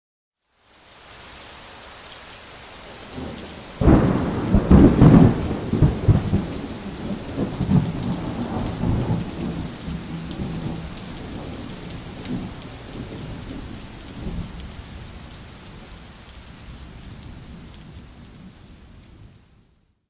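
Steady rain, then about four seconds in a sudden thunderclap followed by rolling thunder that dies away over roughly ten seconds, with the rain going on underneath.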